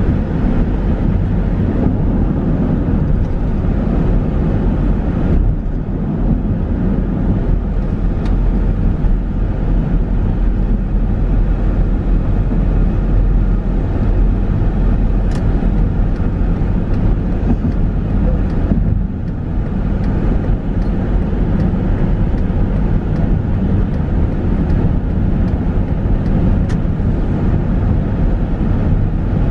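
Steady road noise of a car driving at highway speed, heard from inside the cabin: a continuous low rumble of tyres and engine. It dips briefly about two-thirds of the way through, with a few faint ticks.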